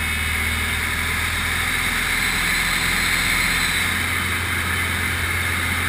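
Piston engine and propeller of a Grob light aircraft droning steadily in aerobatic flight, heard inside the cockpit under a loud rush of air over the canopy.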